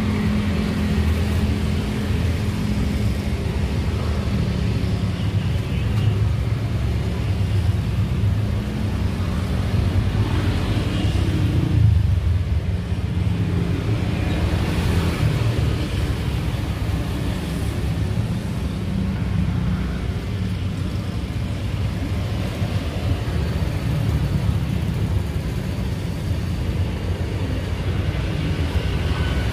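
Steady low rumble of road traffic, with vehicles passing and swelling slightly about twelve seconds in.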